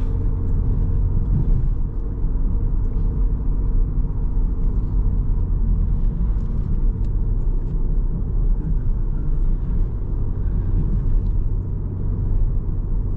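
In-cabin noise of a Mk7 Volkswagen Golf R on the move: a steady low rumble of its 2.0-litre turbocharged four-cylinder engine and tyres on the road.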